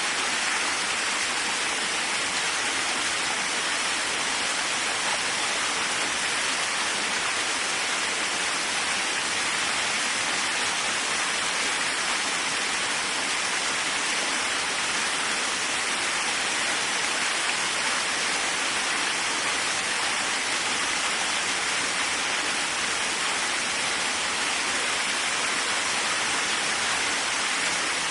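Waterfall rushing, a steady even hiss of falling water with no changes in level.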